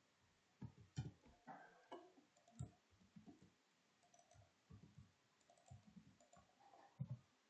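Faint, irregular clicks of typing on a computer keyboard, keys struck in short runs with pauses between them.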